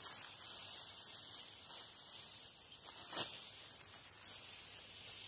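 Ripe rice stalks being cut by hand with a sickle: one sharp swishing cut about three seconds in, over a steady hiss and rustle of dry straw.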